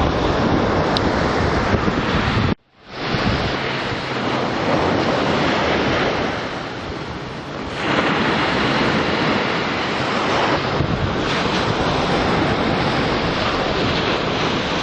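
Heavy sea surf breaking and surging over the shore, with wind buffeting the microphone. The sound drops out for a moment about two and a half seconds in, eases off a little later, then swells again as the next wave comes in.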